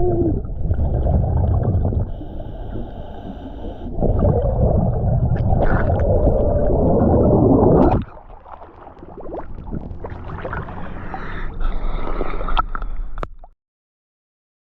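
Scuba diver's breathing heard underwater: rough surges of exhaled bubbles and regulator noise come and go in long breaths, with quieter stretches between. The sound cuts off abruptly near the end.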